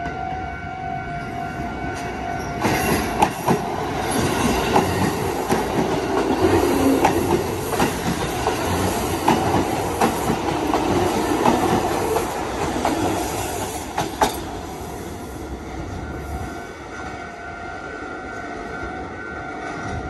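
A Kotoden Kotohira Line electric train running past over a level crossing, its wheels clacking over the rail joints. The crossing's warning bell rings steadily and is drowned out while the train goes by, from about two and a half seconds in until about fourteen seconds in.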